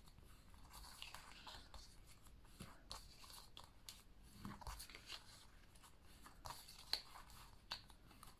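Faint crackling and rustling of cardstock being folded by hand along its score lines, with scattered small clicks.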